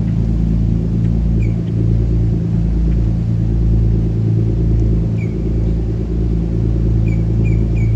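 Boat engines rumbling steadily as a powerboat motors through the inlet, a deep even drone. A few faint short high chirps come over it near the middle and end.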